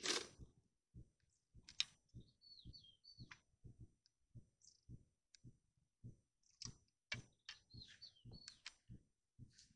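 Small bird chirping faintly: two short runs of quick, downward-sliding high chirps, about three seconds in and again near the end, over faint, fairly regular low knocks.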